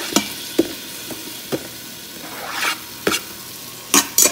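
Diced onions sizzling in hot olive oil in an Instant Pot's stainless steel inner pot on high sauté. The steady frying hiss is broken by several sharp taps and scrapes as the onions are scraped in off a knife.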